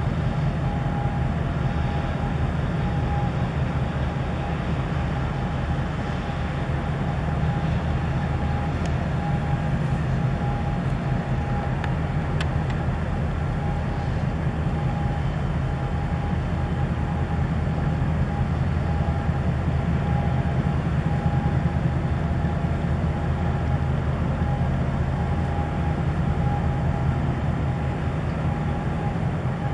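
Steady low engine rumble of ships passing close by: a large container ship under way at slow speed with a tug alongside. A thin steady whine sits above the rumble.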